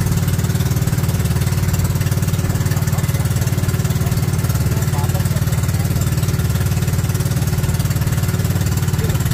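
Outrigger boat's engine running steadily under way, a loud, even drone at constant speed.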